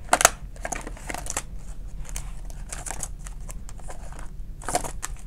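Paper bills and clear plastic binder pouches rustling and crinkling as hands handle the money and flip through a cash-envelope binder. The sound comes in many short rustles, with louder ones just after the start and near the end.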